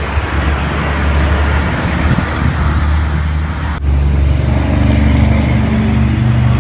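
Motor vehicle traffic, a steady low rumble. It cuts off abruptly about four seconds in and is followed by a louder, steadier engine hum.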